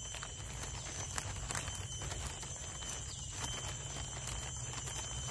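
Footsteps clicking irregularly on a paved path, over a steady high-pitched insect drone and a low rumble.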